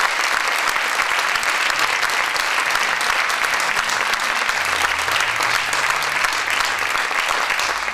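Concert audience applauding steadily, a dense even clatter of many hands clapping.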